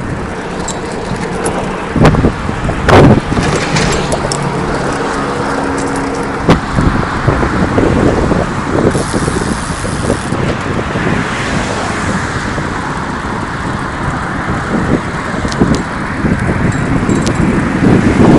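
Rolling and wind noise of a recumbent bicycle being ridden beside a busy road, with a few sharp knocks and rattles from the bike in the first several seconds.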